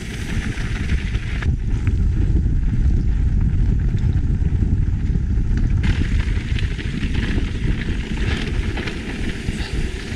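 Wind buffeting a riding mountain biker's camera microphone on a fast descent, a steady loud low rumble, with the tyres rolling over a rocky trail and scattered clicks and knocks from stones and the bike.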